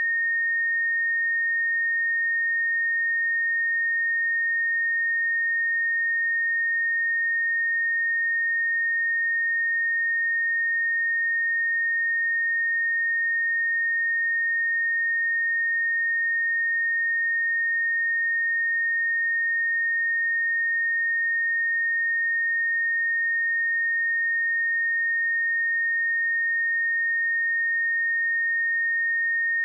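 A pure 1844 Hz sine-wave test tone, one steady high-pitched note held at a constant level, used to test speakers and headphones.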